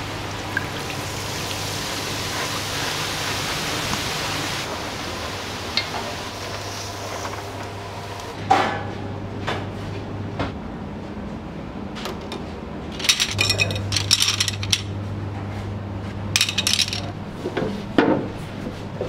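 Restaurant clatter: a steady hiss for the first several seconds, then scattered clinks, rattles and knocks of dishes and utensils. Near the end, wooden counter stools are knocked into place.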